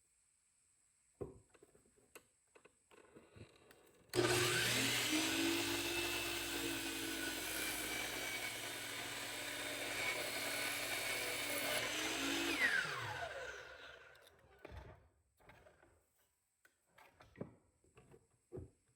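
A power tool's motor starts abruptly and runs steadily for about eight seconds with a hissing whine and a low hum, then spins down with a falling pitch. A few light knocks and handling clicks come before and after it.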